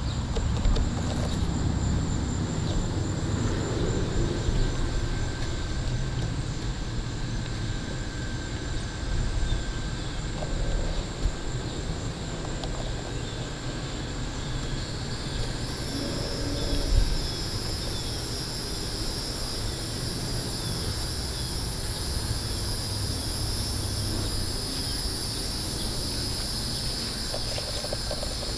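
A steady low rumble, with a steady high insect drone that comes in about halfway through.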